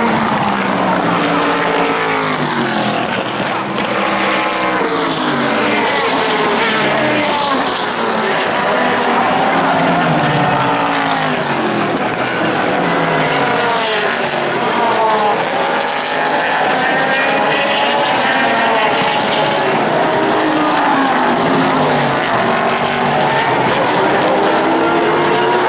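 Several sports-prototype race cars running through corners, their engine notes repeatedly falling and rising in pitch as they go by, with one car's note overlapping the next.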